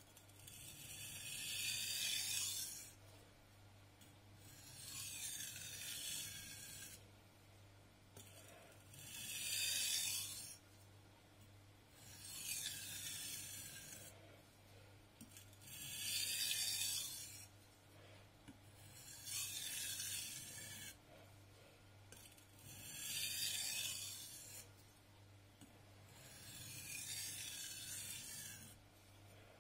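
A VG10 steel nakiri blade drawn across a wet 800-grit whetstone: about eight slow scraping strokes, one every three to four seconds, with the blade turned between strokes. This is the single stroke on each side used to even the edge at the end of the 800-grit stage.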